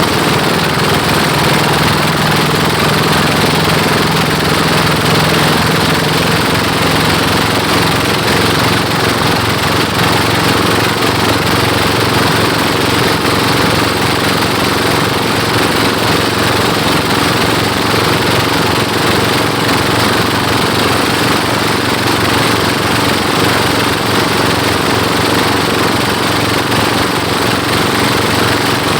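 Pompong boat engines, a 28 hp pull-start engine and a Dompeng diesel, running steadily under racing load. A low tone in the engine note fades about seven seconds in.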